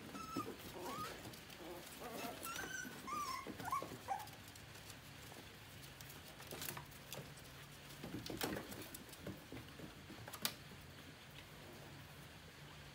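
A young animal's whimpering cries, several short calls sliding up and down in pitch in the first four seconds, followed later by a few sharp knocks.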